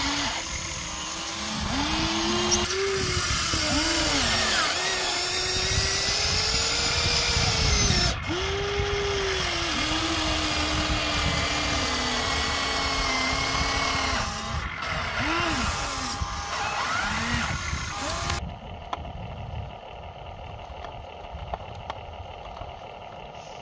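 Electric motors of a Huina radio-controlled toy excavator whining as the boom and bucket move, the pitch swooping up and down with each movement while it digs. The sound drops and turns duller about three quarters of the way through.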